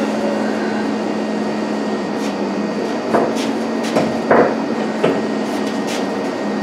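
A few sharp metal clanks from a wrench working on the leaf-spring hardware under a truck: one about three seconds in, a quick pair around four seconds, and one more just after five, over a steady low hum.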